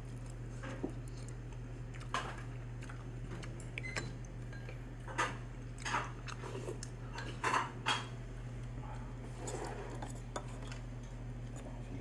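A wooden spoon stirring and scooping rice in a ceramic bowl, with scattered light knocks and scrapes against the bowl, over a steady low hum.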